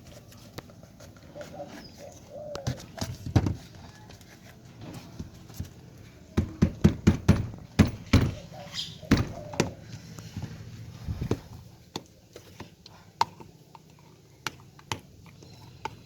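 Irregular knocks and clicks, with a quick run of them about six to eight seconds in.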